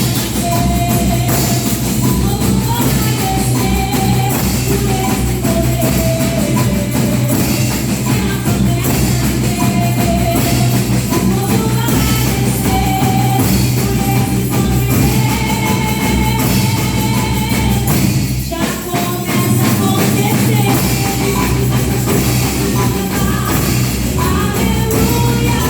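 Percussion band playing a worship piece: dense, steady drumming with cymbals and a melody carried above it. The playing breaks off briefly about eighteen seconds in, then carries on.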